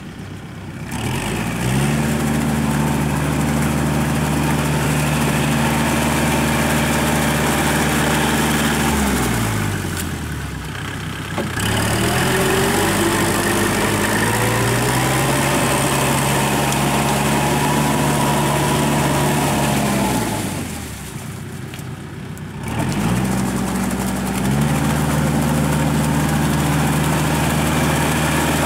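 Kubota L5018 tractor's diesel engine driving a Maschio rotary tiller through flooded paddy mud. The engine note climbs about a second in, then twice drops away and climbs back up as the engine slows and picks up speed again.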